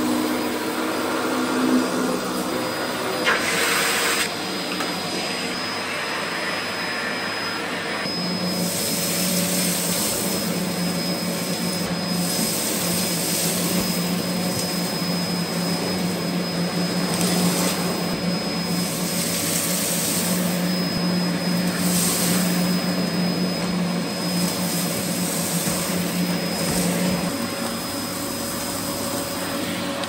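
Dyson DC04 upright vacuum cleaner running steadily while picking up spilled dirt, with a thin high motor whine and a low hum. Its rushing hiss surges briefly several times.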